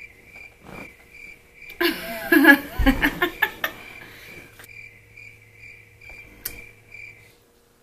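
A high-pitched chirp repeating evenly a little over twice a second, like an insect, which stops near the end. About two seconds in, a woman laughs for a couple of seconds.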